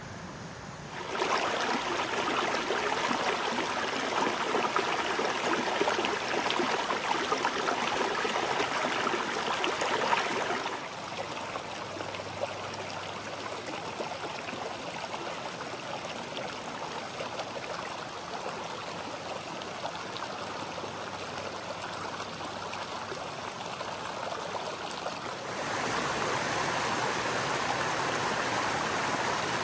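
Mountain creek running over rocks: a steady rush of water that drops abruptly to a softer flow about ten seconds in, then jumps louder again near the end where a small cascade spills over the rocks.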